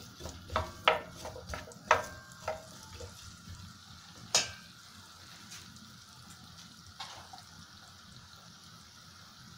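Diced potatoes frying in oil over medium heat in a nonstick pan, with a faint, steady sizzle. A wooden spoon knocks and scrapes against the pan several times in the first couple of seconds, and there is one more knock about four seconds in.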